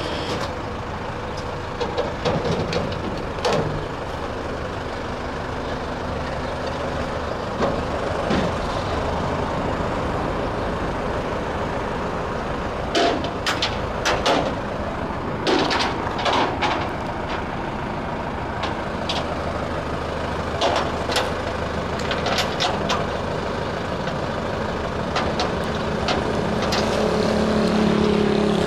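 Flatbed tow truck's engine running steadily, with irregular sharp metallic clanks and clicks as hooks and tie-down straps are fastened to the wrecked car's wheel. Near the end the engine note grows louder.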